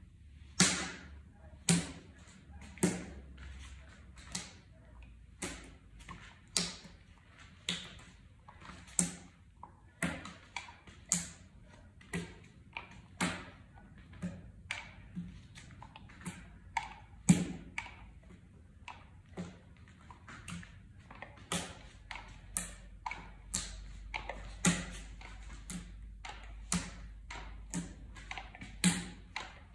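Sharp, separate taps and knocks, unevenly spaced at about one a second, from a paintbrush being worked to drip and flick paint onto a large canvas.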